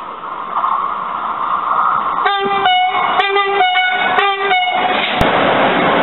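Train horn sounding a rapid run of about six short blasts, switching between two pitches, as a driver's greeting from an approaching locomotive; a steady rush of train noise runs underneath and grows louder after the blasts.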